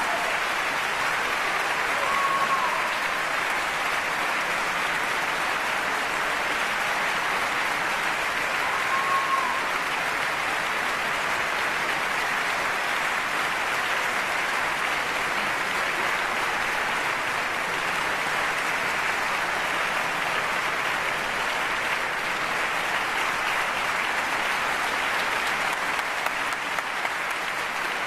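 Large hall audience and choir applauding steadily at the close of a sung aria, with a couple of brief cheering calls in the first ten seconds.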